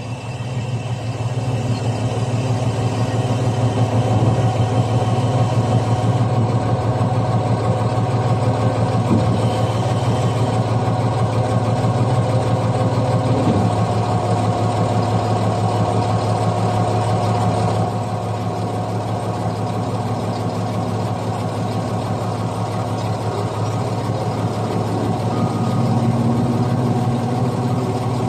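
Heavy diesel engine of a crane running steadily while it holds and lifts a suspended conveyor section. The engine eases slightly about two-thirds of the way through.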